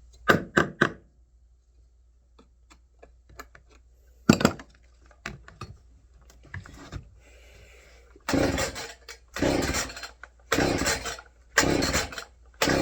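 Chainsaw recoil starter being pulled over and over on a primed cold start, each pull a short rasping burst of the cord and the engine turning over. The engine does not catch. After a few short clatters, five pulls come about a second apart near the end.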